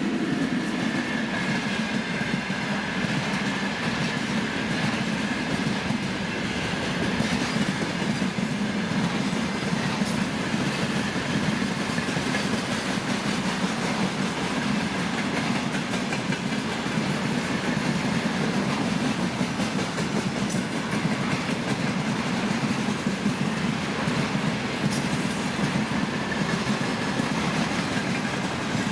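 Freight train rolling past at speed: a steady rumble of steel wheels on the rails with clickety-clack over the rail joints. A faint thin squeal runs through the first third.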